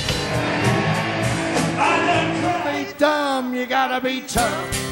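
Live rock band playing, with drums and electric guitar, from on-stage microphones. About three seconds in it cuts to a man singing a wavering, bending line into a microphone. Near the end it cuts again to a different, steadier guitar piece.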